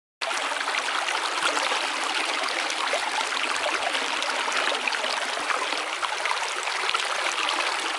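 Steady running water, a babbling stream, with many small splashes and trickles throughout.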